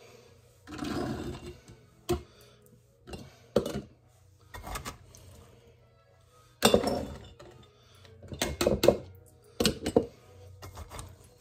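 Soaked great northern beans scooped and poured through a canning funnel into glass jars, several separate pours with clinks of cup and glass on the jars.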